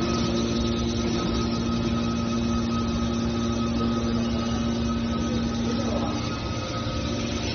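Hydraulic scrap car baler running: a steady machine hum with a few constant tones and no distinct strikes.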